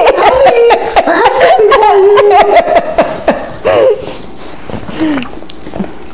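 Several people laughing together, loud for the first four seconds or so, then dying down.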